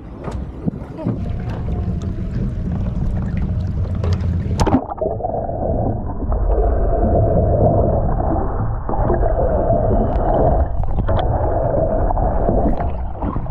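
Boat under way on the water: a steady low motor rumble mixed with wind and water noise. About five seconds in the sound turns duller, losing its upper range after a sharp click.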